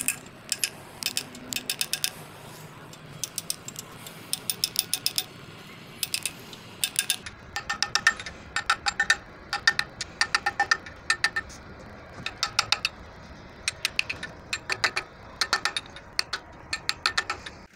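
Small hammer tapping a socket extension handle held against a new camshaft oil seal, light metallic taps in quick runs of several strikes with short pauses, some ringing a little. The strikes go round the seal in sequence to seat it evenly and flush in its bore.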